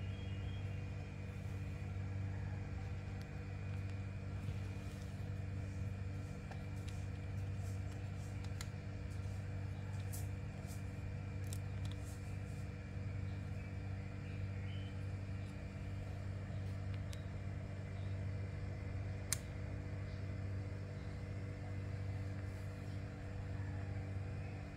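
Steady low mechanical hum of a machine running in a small room, with a few faint clicks and one sharp click about nineteen seconds in.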